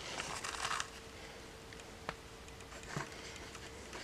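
Hand handling a fabric tool roll of small repair tools: a soft rustle of the cloth near the start, then two light ticks of tools being touched, over a faint steady hum.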